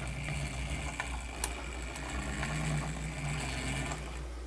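A faint low steady hum that wavers slightly in pitch, with a few light clicks, the sharpest about a second and a half in.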